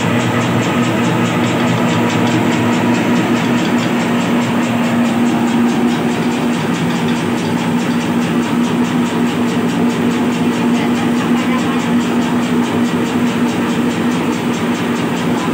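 Meatball (bakso/pentol) forming machine driven by a 650-watt electric motor, running steadily: a constant motor hum with a fast, even mechanical rattle.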